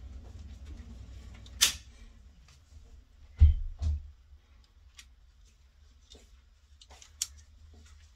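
Plastic switchboard breaker switches being flicked off by hand: a few sharp clicks and knocks, the loudest about three and a half seconds in, over a low steady hum.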